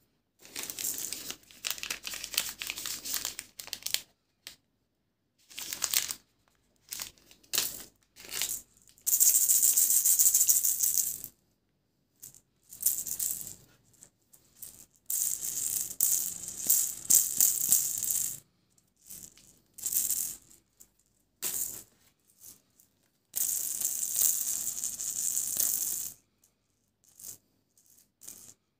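Plastic candy and lollipop wrappers crinkling and rustling as hands rummage through a heap of wrapped sweets. The sound comes in a dozen or so bursts, some a second or two long, with dead silence between them.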